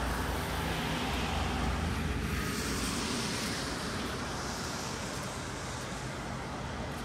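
Road traffic on rain-wet city streets: a vehicle's low engine rumble at first, then a passing hiss of tyres on wet road in the middle, over steady street noise.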